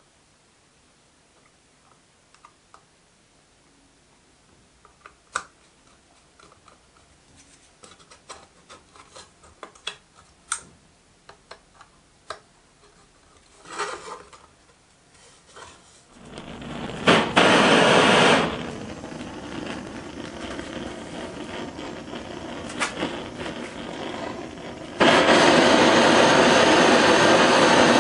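Small scattered clicks and taps of a metal clamping jig being fitted onto a rolled copper boiler tube. A little past halfway a gas blowtorch starts with a steady rushing hiss, heating the tube so the solder inside it melts. The hiss turns suddenly louder about three seconds before the end.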